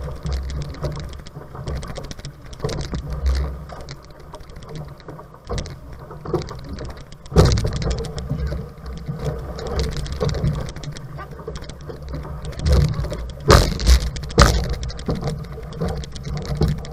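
Sea water rushing and splashing against an outrigger canoe's hull as the crew paddles hard, over a heavy low rumble, with sharp splashes or knocks about seven seconds in and twice more near thirteen and fourteen seconds in.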